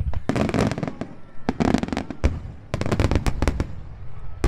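Aerial fireworks in a finale barrage: three quick volleys of crackling bursts over a continuous low rumble of booms.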